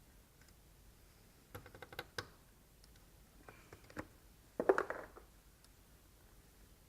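Plastic clicks and rattles as the upper radiator cover of a Ford F-150 is handled and its push clips are pressed into place: a quick run of clicks about two seconds in, a single click near four seconds, and a louder rattling scrape just after.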